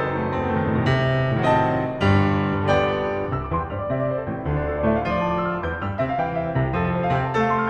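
Background piano music: a melody of struck notes with chords.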